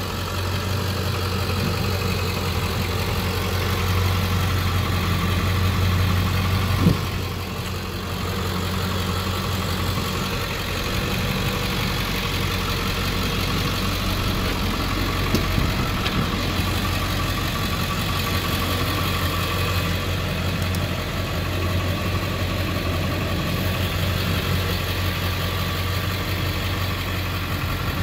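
2001 Ford Excursion's 7.3-litre Power Stroke V8 turbo diesel idling steadily, with a brief knock about seven seconds in.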